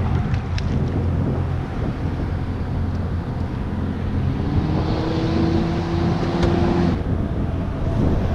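Wind buffeting the microphone over a steady low hum, with a faint, slightly rising tone from about four and a half to seven seconds in.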